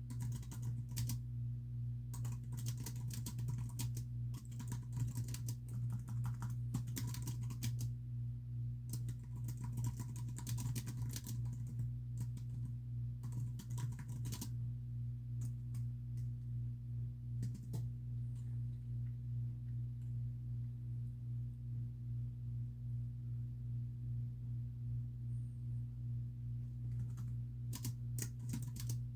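Typing on a computer keyboard: quick runs of key clicks, thinning to scattered single keystrokes through the middle, then another quick run near the end. A steady low hum runs underneath.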